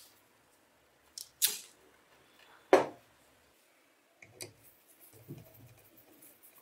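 Sharp clicks and knocks of small parts being handled against a metal bench grinder motor housing, the loudest about three seconds in. Fainter ticking and scraping follow as a screwdriver turns a small screw into the top of the housing.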